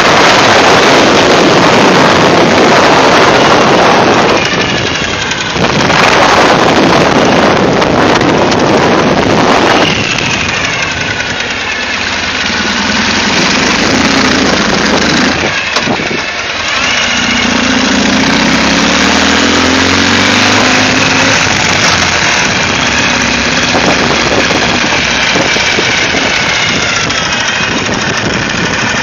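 Wind rushing over the microphone of a moving Ural sidecar motorcycle, then from about ten seconds in the bike's flat-twin engine running at low speed, its pitch rising and falling as the throttle changes.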